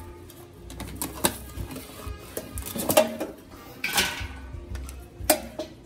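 Metal tongs clanking against a stainless steel sink and steamer pot while live blue crabs are lifted in: a handful of sharp metallic clangs that ring on briefly, the loudest three about three, four and five seconds in, with lighter clicks and scrapes between.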